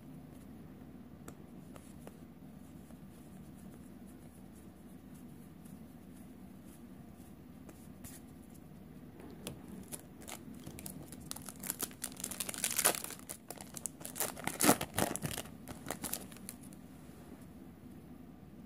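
Magic: The Gathering Ikoria booster pack's foil wrapper crinkling and being torn open, in a run of crackling rips from about halfway through, loudest around two-thirds of the way in. Before that, only quiet room sound with faint card handling.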